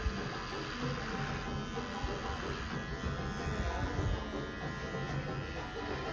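Cordless electric hair clipper buzzing steadily as it shaves hair close to the scalp, with music playing in the background.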